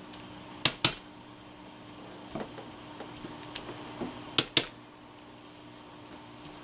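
Small wooden-handled rubber stamp tapped on an ink pad and pressed onto card stock on a tabletop: sharp double taps about a second in and again about four and a half seconds in, with a few lighter taps between, over a faint steady hum.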